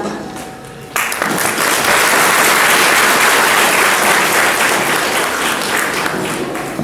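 Audience applauding, breaking out suddenly about a second in and tapering off near the end.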